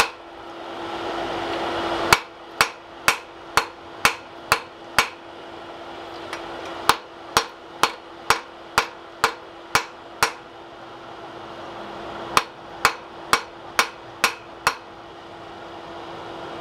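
Hand hammer striking white-hot axe steel on an anvil: three runs of blows, about two a second, with short pauses between. This is forge welding, setting the fluxed steel bit into the mortising axe body.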